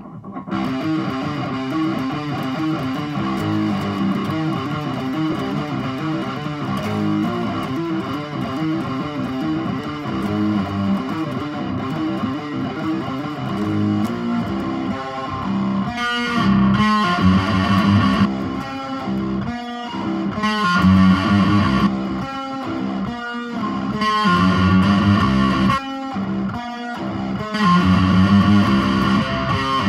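Les Paul-style electric guitar played with a pick: a quick repeating picked figure, then from about halfway a louder chopped rhythm with short stops between phrases.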